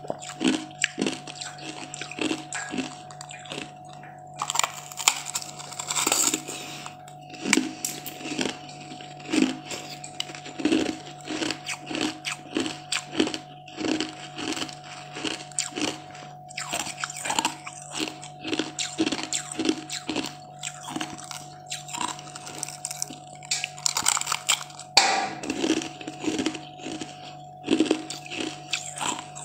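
Crunching bites into frozen green ice treats, followed by steady chewing of the ice at about two chews a second, with sharp louder crunches here and there.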